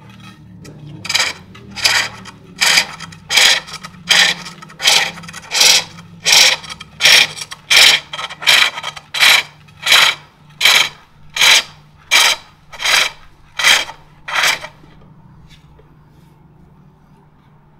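A turning tool cutting a wooden bowl on a foot-powered pole lathe: a short rasping cut on each downstroke of the treadle, about nineteen strokes at a steady pace of roughly three every two seconds, stopping near the end.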